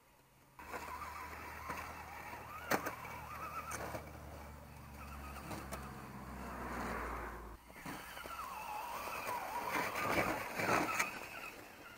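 Electric motor and gear drive of an MST CMX scale RC crawler whining, rising and falling in pitch with the throttle as it climbs through snow, with a steady low hum beneath and a few sharp clicks. It starts about half a second in and drops out briefly a little past halfway.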